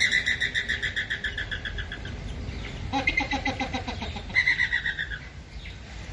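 Flamingos calling: rapid, pulsed nasal calls, with a lower-pitched series about three seconds in and another high call about four and a half seconds in.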